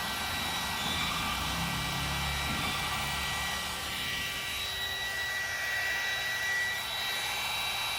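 Heat gun running steadily: a rush of blown air with a high, steady motor whine, used to heat taillight tint film and work out a wrinkle.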